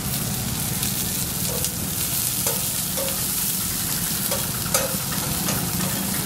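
Shredded cabbage and onion sizzling on a hot flat griddle, with a metal spatula scraping and tapping the pan surface several times as the vegetables are tossed.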